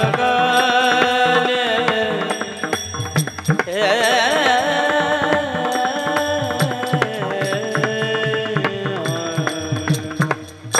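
Male voice singing a devotional kirtan melody in raga Bhairavi, with long held notes and wavering ornamented turns, over a steady hand-drum beat and sustained instrumental accompaniment.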